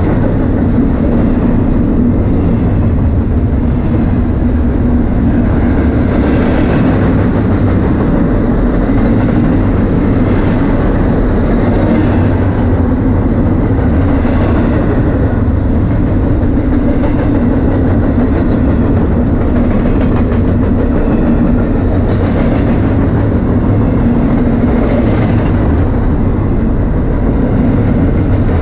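Double-stack freight train well cars rolling past close by: a loud, steady rumble of steel wheels on rail, with a faint clack recurring every second or two.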